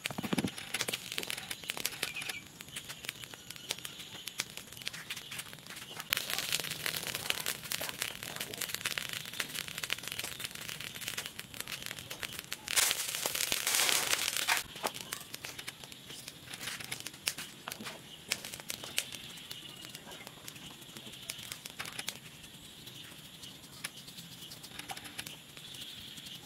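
Molten metal poured into a mould pressed in sand, with scattered crackling and clicks throughout. About halfway through there is a louder hissing rush lasting about two seconds as the metal runs into the mould.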